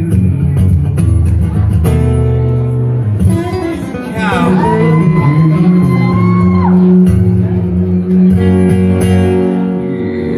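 Country-rock song playing, with guitars over bass and drums. About four seconds in, a long note bends up, holds and drops away.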